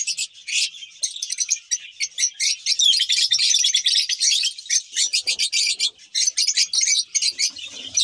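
A flock of lovebirds chattering: a dense, unbroken stream of short, shrill chirps from many birds at once.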